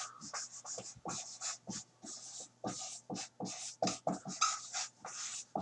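Dry-erase marker squeaking and scratching on a whiteboard as a word is written in capital letters: a quick, irregular run of short strokes.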